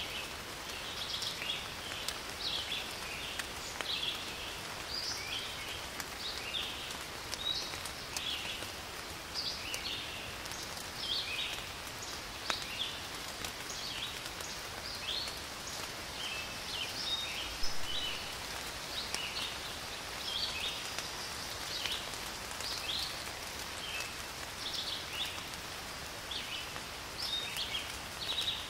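Rain falling steadily on garden shrubs and conifers, with scattered drip ticks, while small birds chirp over and over.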